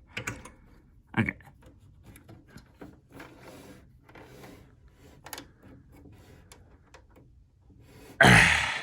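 Faint clicks and rubbing of plastic and metal parts being handled as an NVMe SSD is worked into its slot inside a workstation, with scattered small knocks. Near the end comes a brief, loud rush of noise.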